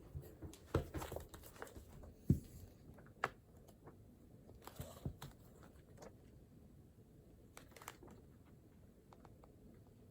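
Desk handling sounds: scattered light knocks and clicks with short paper rustles, the loudest knock a little over two seconds in, thinning out near the end.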